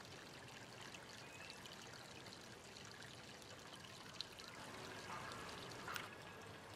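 Faint, steady trickle of running water, with a few small clicks, the clearest near the end.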